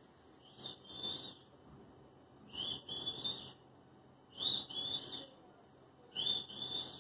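Alexandrine parakeet whistling: four short two-note whistles, each about a second long, coming about every two seconds.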